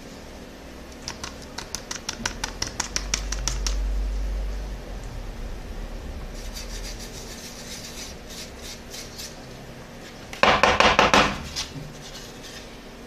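Hands rubbing and scraping over a plastic part freshly patched with super glue and baking soda. First comes a run of quick scratchy strokes, about five a second, then fainter ones. About ten and a half seconds in there is a louder, dense rub lasting about a second.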